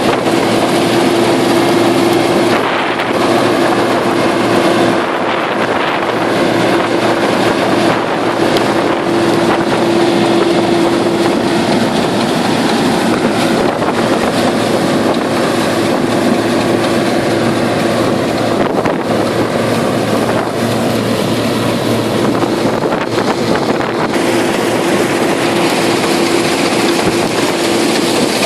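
Combine harvester running steadily: a loud, continuous machine drone with a humming tone that fades in and out.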